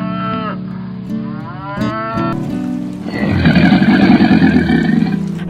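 Cow mooing: a long, loud, low moo about three seconds in that lasts around two seconds, after shorter rising-and-falling calls, over background guitar music.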